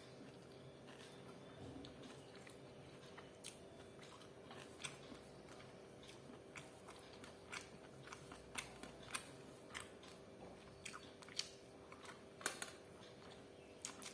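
A person chewing and biting into chicken dry fry, close to the microphone: irregular crisp crunches and mouth clicks, a few sharper ones standing out. A faint steady hum runs underneath.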